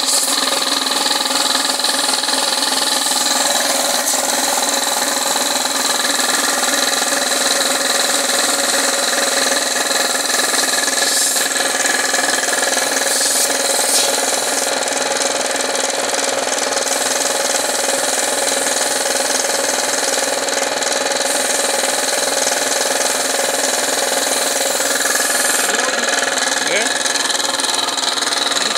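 Belt-driven piston air compressor running steadily, with the hiss of air from a paint spray gun coming and going as the trigger is worked.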